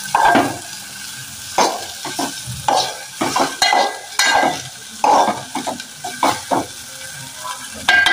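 Steel spoon stirring and scraping chopped okra around an aluminium pot, in irregular strokes about two a second, with the okra sizzling as it fries.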